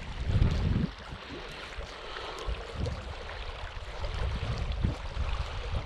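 Wind rumbling on the microphone over a steady outdoor hiss, heaviest for the first second.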